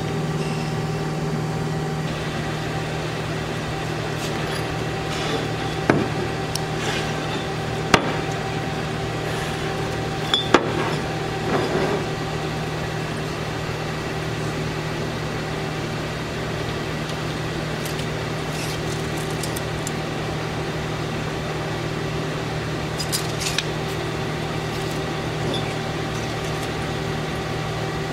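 Hyd-Mech S-23A horizontal band saw running at idle between cuts, a steady machine hum. A few light metallic clicks and knocks come over it now and then.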